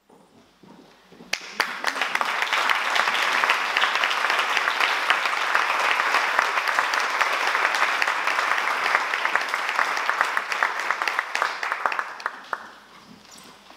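Audience applauding. The clapping starts about a second in, holds steady, and dies away near the end.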